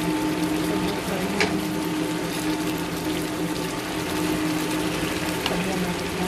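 Milkfish simmering in its sauce in a nonstick pan, the liquid bubbling steadily with a couple of small pops, over a steady hum.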